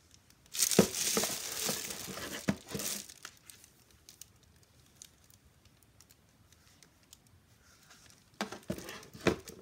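Crinkling, rustling handling noise as pumps and their crinkly packaging are moved about: a loud burst of about two and a half seconds with a few knocks, then quiet, then a shorter burst of rustling and knocks near the end.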